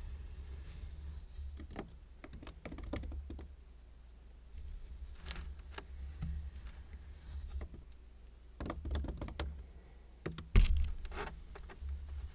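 Kinetic sand being cut and scraped with a metal tool, heard as scattered clusters of small crunching clicks over a steady low hum, with one sharp knock near the end.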